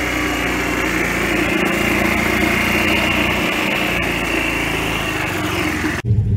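Golf cart's small engine running steadily, with a high whine above the hum. About six seconds in it cuts off abruptly to a deeper low rumble.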